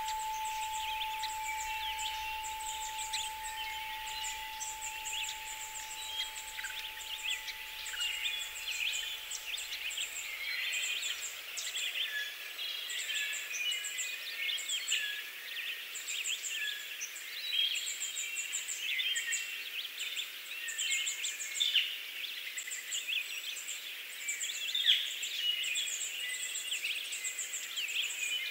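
Many birds chirping and singing at once, a dense chorus of short calls with a rapid high trill repeating throughout. A faint steady tone fades out about a third of the way through.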